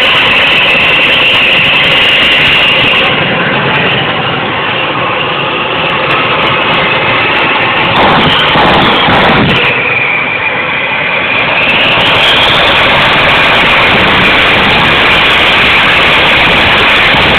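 Home-built gas turbine jet engine running loud: a steady rushing noise with a high whine on top. About ten seconds in the whine drops in pitch, then climbs back about two seconds later.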